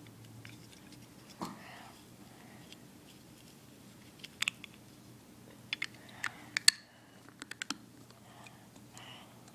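Small plastic building pieces clicking as they are handled and pressed together: one click about a second and a half in, then quick clusters of sharp clicks in the second half, the loudest a little before the end.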